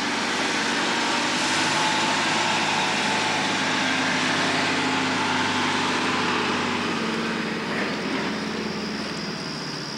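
Tractor engine running steadily close by, then fading gradually as the tractor moves off over the last few seconds.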